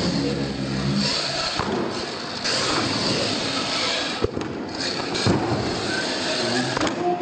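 Radio-controlled monster truck's motor revving as it drives up a ramp and jumps, with two sharp knocks of the truck hitting down and tumbling, about four seconds in and again a second later.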